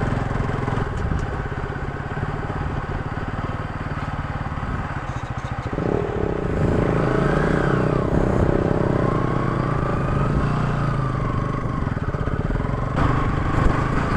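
Motorcycle engine running on a rough dirt track. About six seconds in it gets louder, and its pitch rises and falls as it is revved through the rough patch. The rider says the clutch has moved far out of adjustment, making it hard to get the bike up.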